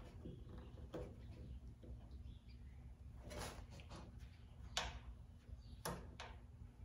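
A few faint, scattered clicks and light knocks of metal car parts being handled and shifted by hand, over a low steady hum.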